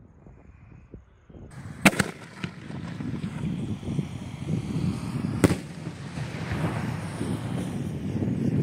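Sony Fireworks 'Bumble Bee' 4.1-inch aerial shell: a sharp launch bang about two seconds in, then the shell bursting in the air with a second sharp bang about three and a half seconds later, over a steady rumbling background.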